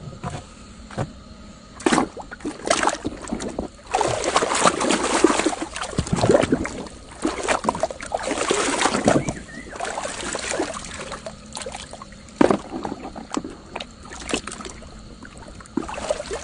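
Water splashing and sloshing as a plastic toy cement mixer truck is washed, loudest in the middle stretch, with scattered knocks of the toy against a basin.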